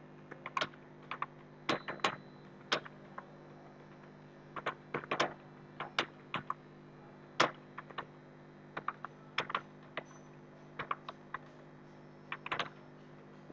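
Computer keyboard being typed on at a typing-test pace of about 34 words a minute: irregular key clicks, single and in quick clusters, with short pauses, over a low steady hum.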